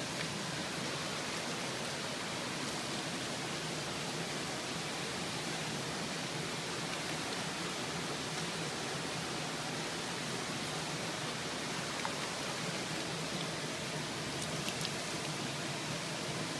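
Water running and splashing steadily over a stone as it is washed.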